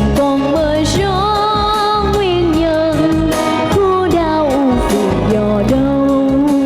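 Music: a child singing long, wavering held notes over a backing track with a steady beat.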